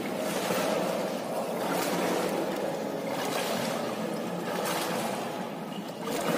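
Pool water splashing and churning from a swimmer's strokes in an indoor pool, with a stronger splash about every second and a half.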